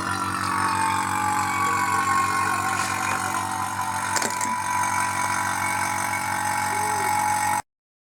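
Refrigeration vacuum pump running while it evacuates the refrigerator's sealed system: a steady motor hum with a whistle that falls in pitch over the first few seconds, then holds, and cuts off abruptly near the end.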